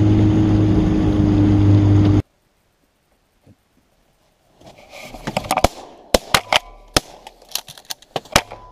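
Outboard boat motor running steadily, stopping abruptly about two seconds in. After a few seconds of silence comes a quick run of sharp clicks and knocks.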